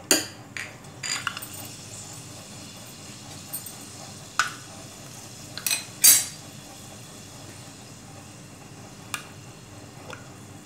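Fenugreek seeds frying in hot oil in a kadai, with a steady faint sizzle. Over it come several short, sharp metallic clinks of kitchenware, the loudest about six seconds in.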